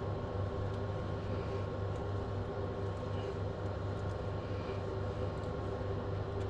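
A steady low mechanical hum with a faint constant higher tone above it. It stays unchanged throughout, with no distinct handling sounds standing out.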